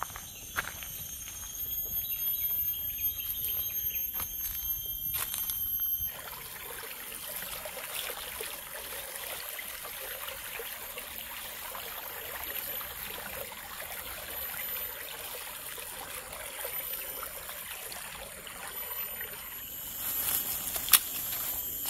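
Forest ambience with insects shrilling in steady high-pitched tones and footsteps on rock and leaf litter. About six seconds in the sound changes abruptly to a steady, even hiss of a small stream trickling. Footsteps crunch through dry leaves near the end, with one sharp snap.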